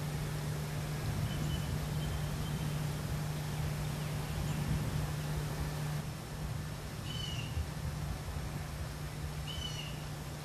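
Steady low buzzing hum of bees working the blossoms. A bird chirps briefly twice in the last few seconds.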